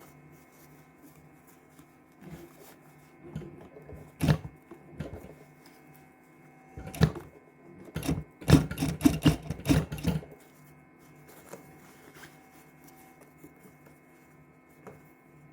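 Sewing machine stitching in two short runs, a brief one about seven seconds in and a longer one of about two seconds just after, with a few clicks of handling beforehand.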